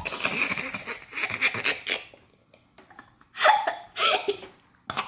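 Flarp noise putty being squished in its tub, making squelching, fart-like squeaks: one long stretch over the first two seconds, then two shorter ones past the middle.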